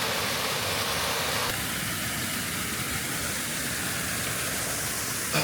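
Waterfall rushing steadily, with a slight change in its sound about a second and a half in.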